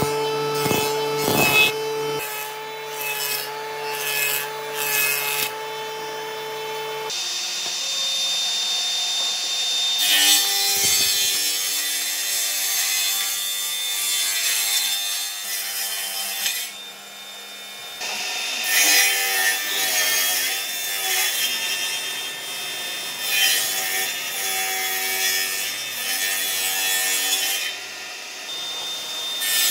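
Woodworking machines cutting pallet wood: a few knocks and a steady machine hum while boards are fed over a jointer in the first seconds, then a table saw ripping long boards lengthwise in several long cuts with short pauses between them.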